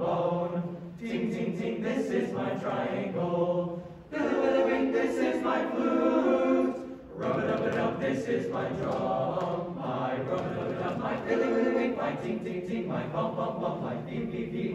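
Mixed choir singing without accompaniment, with two short breaks between phrases about four and seven seconds in.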